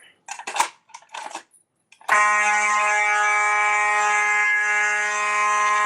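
A few short rattling knocks, then about two seconds in a fire alarm horn starts abruptly and sounds a loud, steady tone with many overtones, set off from a T-bar pull station.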